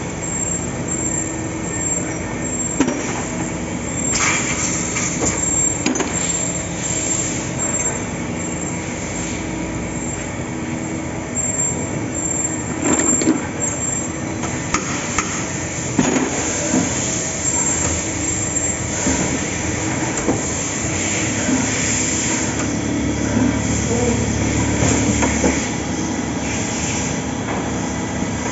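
CNC machine running: a steady mechanical hum with several layered tones, broken now and then by sharp knocks and clicks.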